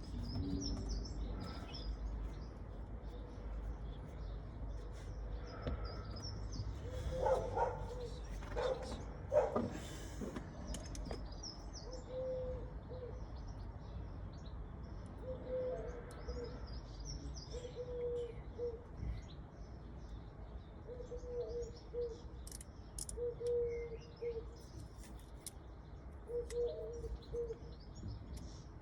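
Birds chirping, with a short low call repeating every second or two, over a steady low rumble. A few louder clicks come about a quarter of the way in.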